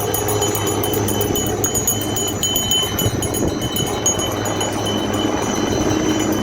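A hovering helicopter's steady drone, with a crowd of people chattering over it.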